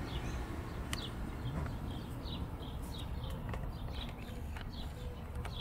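A small bird chirping in the background: a quick series of short high chirps, about two or three a second, over a low steady outdoor rumble, with a few faint clicks.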